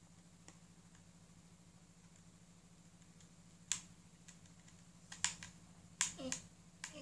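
Sharp, scattered clicks and taps of a screwdriver working on a small plastic housing to get at a battery: one about halfway through, then several more close together in the last two seconds.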